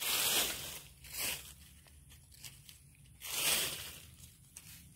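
Dry fallen leaves crunching and rustling as they are scratched and raked aside on the ground. There are three bursts, two close together in the first second and a half and a longer one a little past the middle.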